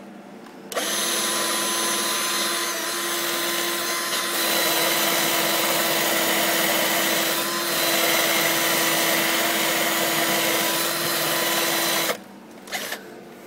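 Electric drill spinning a wire brush against a rusted-through exhaust manifold, scouring rust out of the hole; a loud, steady grinding whir that starts under a second in and cuts off near the end.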